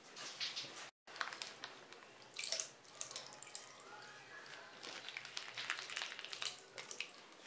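A spoon stirring marinated chicken in a glass bowl for about a second, then, after a cut, thick yogurt being spooned and poured into a muslin cloth over a bowl to make hung curd: wet splats and drips with light spoon clicks.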